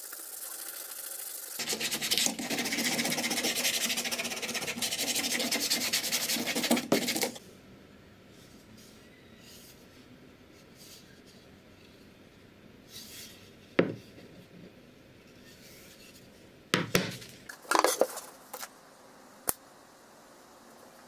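A plywood piece being hand-sanded: fast back-and-forth rubbing strokes for about seven seconds, then it stops. A few scattered sharp knocks and clicks follow in the second half.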